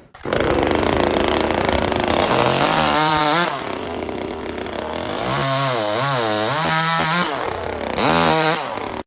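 A motorised power tool running loudly, starting just after the opening, with its pitch wavering up and down several times as it works.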